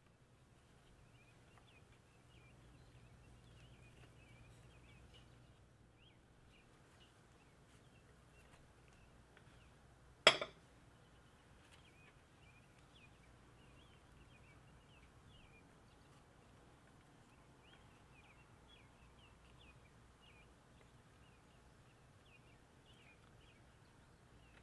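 Faint small birds chirping in quick, scattered calls, with one sharp knock about ten seconds in.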